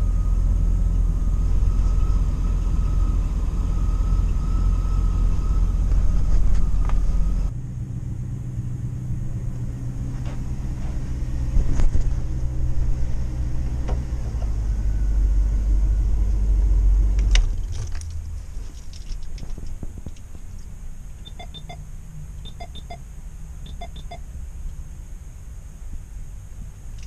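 Motorhome engine idling, heard from inside the cab, with a steady high whine over it for the first seven seconds. The low engine rumble drops away abruptly about seventeen seconds in, followed by a few faint light clinks.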